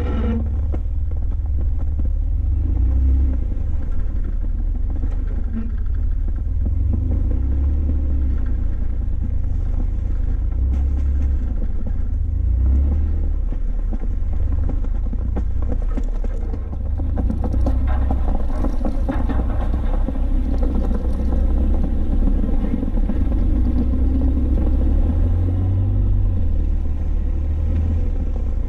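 Jeep Wrangler driving: a steady, loud low rumble of engine and road noise that swells and eases a little, with no sudden events.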